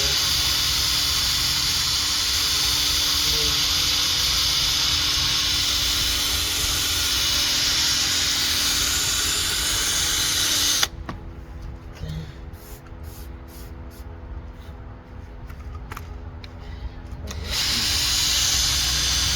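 Handheld power tool spinning a 3000-grit sanding pad against a plastic headlight lens: a steady whirring hum. It stops abruptly about eleven seconds in, a few light clicks follow, and it starts up again near the end.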